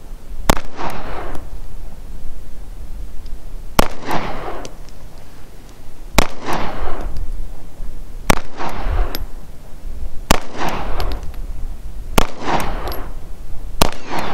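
SAR USA B6 9mm pistol fired in slow, aimed single shots: seven shots roughly two seconds apart, each followed by a short echo.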